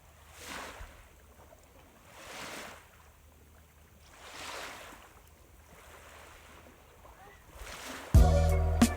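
Small sea waves washing ashore in soft swells about every two seconds. Music comes in suddenly near the end.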